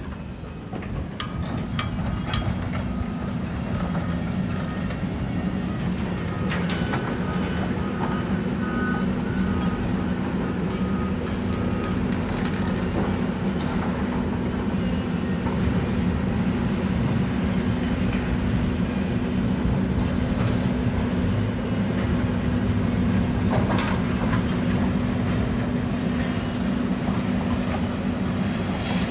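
Steady mechanical hum with a constant low tone that holds level throughout, plus a short run of faint, evenly spaced high beeps about a quarter of the way in.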